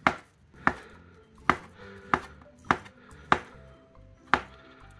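Kitchen knife chopping roasted sweet potato into rounds on a cutting board: about eight sharp knocks of the blade hitting the board, roughly one every half second to second, at an uneven pace.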